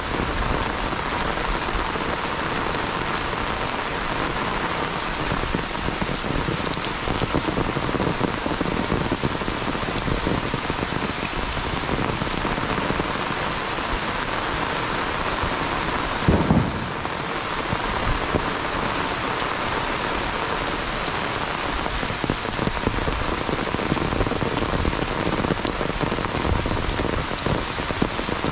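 Heavy monsoon rain falling steadily on a muddy dirt road and the surrounding trees. There is one brief low thump about halfway through.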